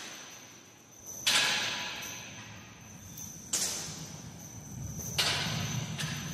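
Loud percussive crashes in a reverberant space, three of them about two seconds apart, each ringing out slowly over a faint steady high tone. A low rumble builds in the second half.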